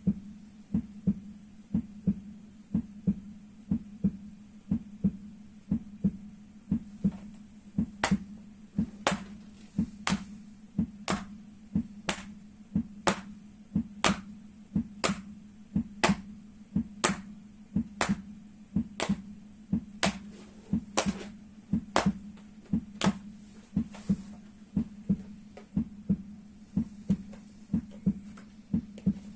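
Heartbeat sounds, a steady lub-dub about once a second. From about 8 s to 24 s sharp slaps land once a second in time with the beat, made by striking the feet together.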